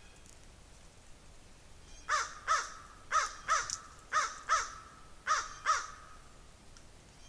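A crow cawing: eight harsh caws in four quick pairs, each pair about a second apart.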